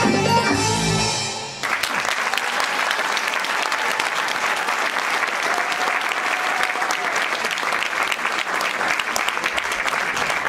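Egyptian baladi belly-dance music fading out, then audience applause breaking out about a second and a half in and continuing steadily.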